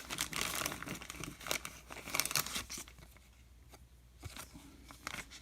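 Crinkling and rustling of trading cards and their packaging being handled, a dense run of small crackles over the first few seconds, thinning out to occasional ones.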